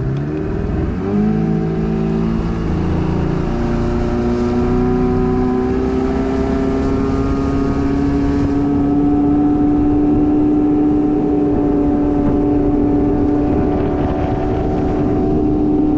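Boat outboard motor speeding up over the first few seconds, then running steadily at speed, its pitch creeping slowly higher.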